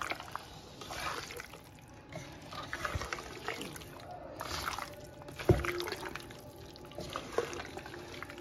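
A hand squelching raw chicken pieces through a thick, wet spiced marinade in a metal pot, mixing in irregular wet strokes, with one sharp knock about halfway through.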